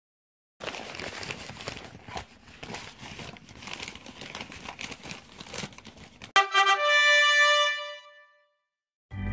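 Crumpled kraft-paper bag crinkling and rustling as it is handled, a dense crackle for about six seconds. It is followed by a short, louder musical sting: a held chord of several steady notes that fades after about a second and a half.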